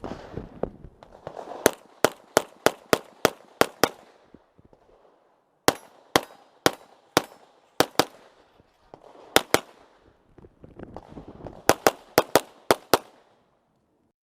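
Glock pistol fired in rapid strings during a timed practical-shooting stage: a fast run of about eight shots, then singles and pairs with short pauses, then another fast run of about seven shots that ends a little over a second before the end.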